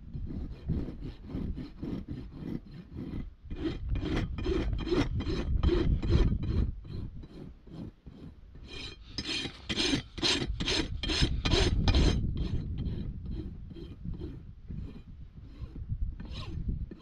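Flat hoof rasp filing an overgrown hoof in repeated strokes, about three a second, quickest and loudest around the middle. The filing shapes the long-neglected hoof down during a trim.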